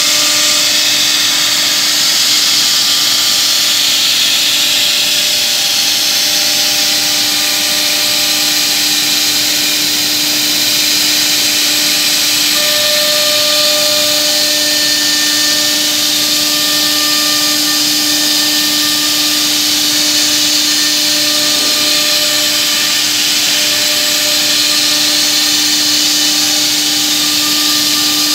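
Holztek CNC-2500A horizontal CNC drilling machine running: a loud, steady whirring hiss over a constant hum, with fainter higher whines coming and going, as the drilling head travels along the panel.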